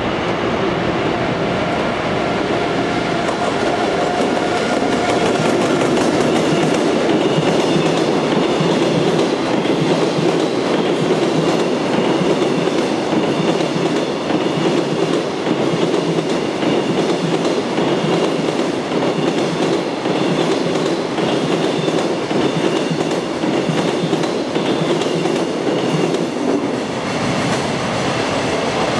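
Container freight train hauled by an EF81 electric locomotive running through, its wheels clicking over the rail joints as the flatcars pass. A steady whine is heard in the first few seconds.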